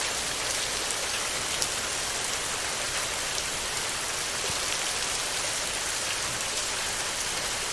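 Heavy rain falling steadily on a tin roof: an even, dense hiss with faint scattered drop ticks.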